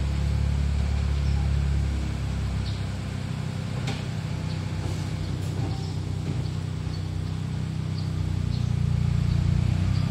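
Vehicle engines running at low revs as a car pulls slowly away close by. The low hum drops after about two seconds and swells again near the end, and there is one sharp knock about four seconds in.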